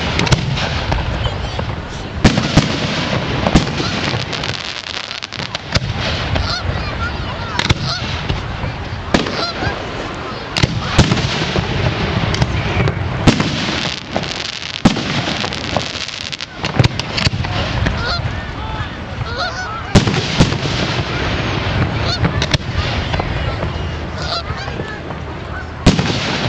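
Aerial fireworks shells bursting overhead, a sharp bang every second or two at irregular intervals, over a steady din of crowd voices and honking calls.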